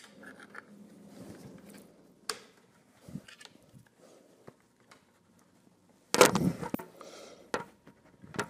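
Metal hole punch being handled and prodded with a small hand tool: scattered light clicks and scrapes, with one louder clatter about six seconds in.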